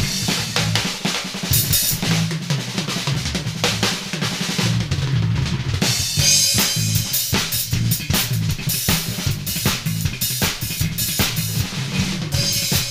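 Drum kit and bass guitar jamming an improvised funk groove: kick, snare and rimshot hits over a running line of low bass notes. The cymbals get brighter and busier about six seconds in and again near the end.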